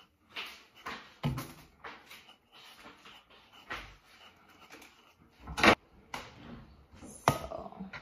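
Kitchen knife scraping as a mango is peeled by hand, among scattered knocks and clicks. The loudest is a sharp double knock about five and a half seconds in, and another comes near the end.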